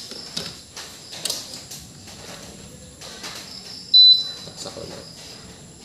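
A short, high electronic beep from the air conditioner's control board about four seconds in, as the unit powers back on after a reset and its display lights up. A few faint clicks come before it.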